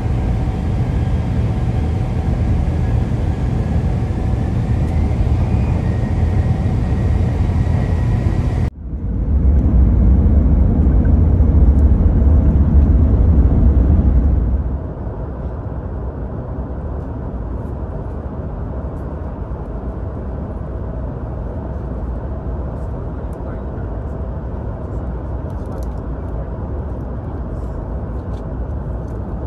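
Running noise of a Hokuriku Shinkansen E7/W7-series train at speed, heard from inside the car: a steady low rumble and rush. It breaks off abruptly about nine seconds in, gives way to a louder low rumble for several seconds, and settles into a quieter, even cabin hum from about fifteen seconds.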